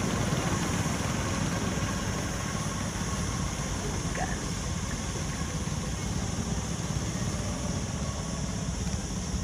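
Go-kart engines running out on the track, a steady drone.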